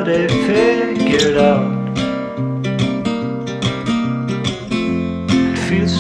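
Acoustic guitar strumming chords in a song, in a steady rhythm of repeated strokes.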